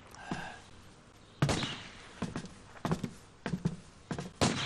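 Sporadic gunfire at a distance: a string of single shots at irregular intervals, beginning about a second and a half in. It is the scattered shooting of a gunfight that is thinning out.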